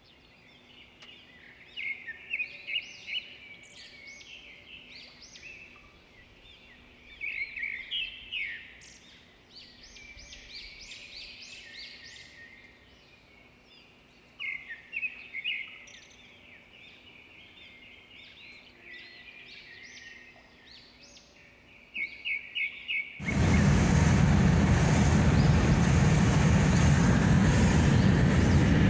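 Small birds chirping, in bursts of quick repeated chirps every few seconds. About 23 seconds in, a loud steady rush of wind and road noise from a moving vehicle suddenly takes over.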